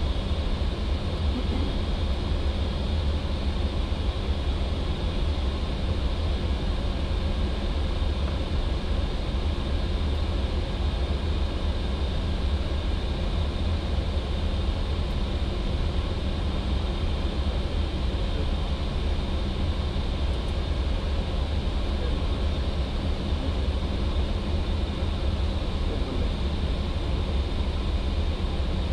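Steady flight-deck noise of an Airbus A320 in flight: a constant low rumble of airflow and engines, with faint steady tones above it.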